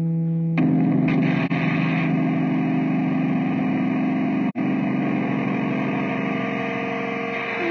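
Live band music: a chord of long held notes that changes abruptly to a new chord about half a second in, with a brief gap in the sound a little past the middle.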